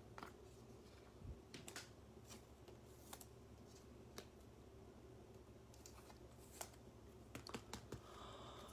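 Faint, irregular clicks of typing on a computer keyboard over a low, steady room hum.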